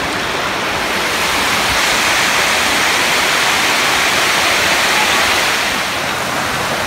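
River water rushing over a low concrete dam spillway and through rocky shallows: a loud, steady rush.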